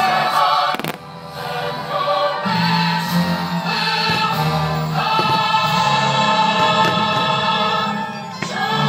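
Choir and orchestra music from the fireworks show soundtrack, with sustained choral chords. Two sharp firework bangs cut through, about a second in and near the end.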